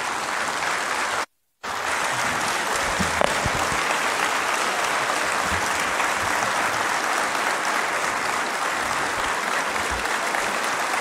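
A large audience applauding steadily, the clapping dense and even. The sound cuts out completely for a moment about a second in, then resumes.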